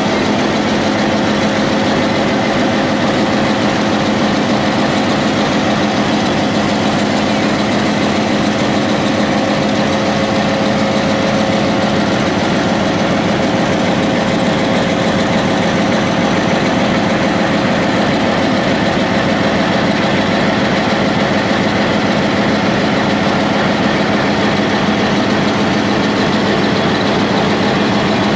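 Close-up of a Sri Lanka Railways Class M10 diesel-electric locomotive's engine running steadily at idle, a loud even hum with a constant low drone.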